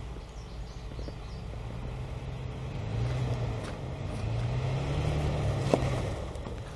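Toyota FJ's engine pulling under load while rock crawling, swelling twice as the driver gives it throttle, with one sharp knock a little before the end.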